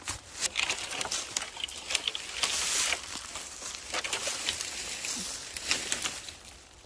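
Boots stepping and shuffling through deep dry fallen leaves: irregular crunching and rustling, busiest about two and a half seconds in.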